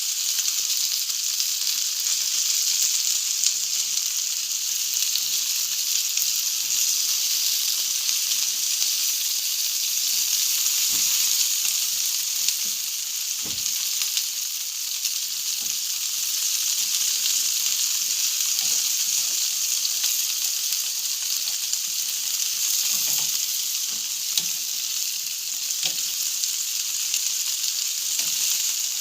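Food sizzling on a barbecue grill: a steady sizzle with scattered small crackles.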